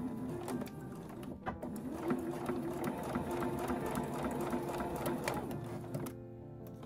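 Electric domestic sewing machine running steadily, stitching through thick tatami edging, and stopping about six seconds in. Background music plays throughout.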